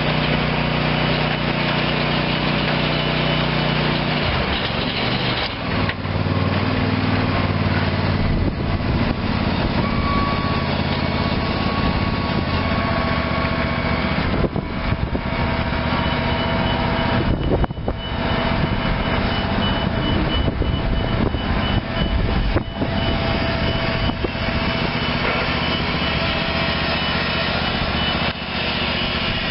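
Kohler 25 hp gas engine of a Big Dog Black Jack zero-turn mower running. It holds a steady note, which changes about four seconds in and then runs on more unevenly.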